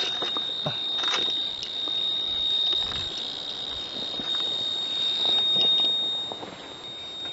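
Ludlum radiation survey meter with a scintillation probe counting about 700 counts per second over radioactive, uranium-bearing fluorite: the clicks come so fast that they run together into a steady high-pitched buzz. The high count rate is the sign of a 'hot' sample.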